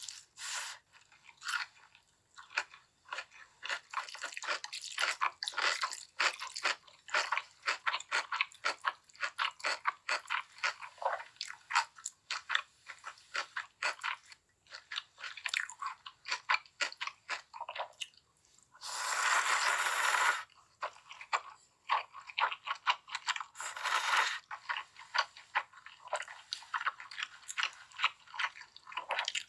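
Close-miked crunching and chewing of crispy fried chicken, a rapid run of crackly bites and chews, broken about two-thirds through by a longer continuous noise of a second and a half and a shorter one soon after.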